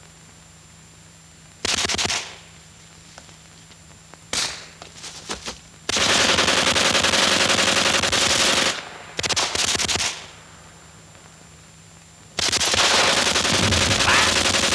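Machine-gun fire in bursts on an old film soundtrack. A short burst comes about two seconds in, then a single shot and a few scattered shots, a long burst of nearly three seconds, a couple of short bursts, and another long burst near the end. A faint steady hum runs underneath.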